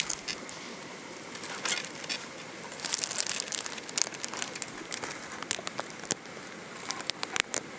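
Black plastic garbage bag crinkling and rustling in irregular bursts as a skunk roots through it for food scraps.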